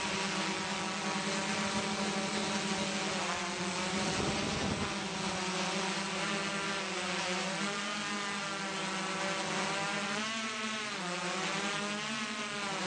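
Small multirotor drone's electric motors and propellers buzzing steadily, the pitch wavering and shifting as it manoeuvres, most of all near the end. A brief low rumble of wind on the microphone about four seconds in.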